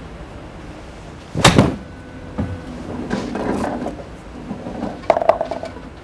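A golf club striking a ball with one sharp crack about a second and a half in, followed by softer knocks and clattering clicks near the end.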